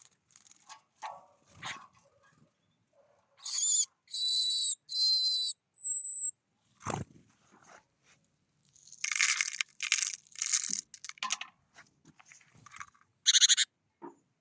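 Birds calling at a feeder: three drawn-out, evenly pitched calls, a short thin whistle, then a run of louder, rougher calls a few seconds later and one more near the end. A single soft knock comes about halfway through.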